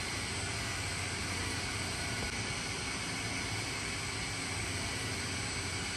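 A 30-kilo Toper TKM S30 coffee roaster running: a steady rushing noise over a low hum.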